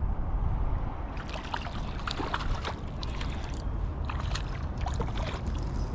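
Handling noise on a fishing kayak on the water: a steady low rumble with many small, irregular clicks and taps.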